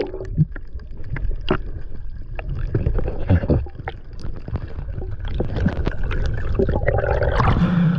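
Underwater noise heard through a submerged camera: a dull rumble of moving water with scattered clicks and bubbling.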